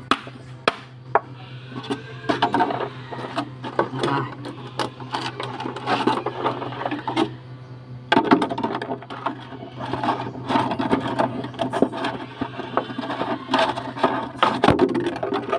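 A large thin-walled plastic bottle crinkling, crackling and knocking against a concrete tabletop as it is gripped and turned, in irregular bursts with sharp clicks.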